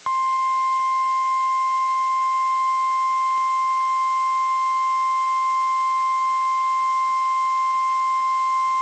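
NOAA Weather Radio 1050 Hz warning alarm tone: one loud, steady, unbroken tone, marking the start of a snow squall warning broadcast.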